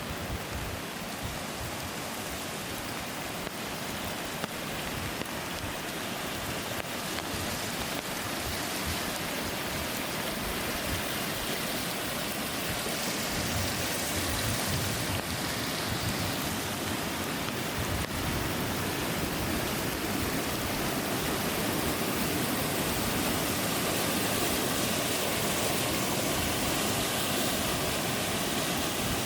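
Rushing water of a stream, a steady hiss that grows gradually louder over the first half and then holds.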